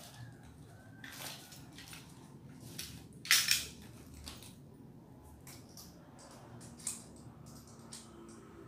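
Hand tool clicking and scraping at the washing machine's glued-in control module to make a hole in it from underneath, in short irregular strokes, the loudest a crunchy scrape about three and a half seconds in.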